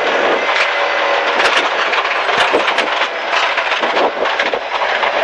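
Ford Escort RS Cosworth rally car's turbocharged 2.0-litre four-cylinder engine and drivetrain running hard through a left hairpin, heard from inside the cabin. A loud steady mechanical din is broken by irregular sharp clicks and knocks.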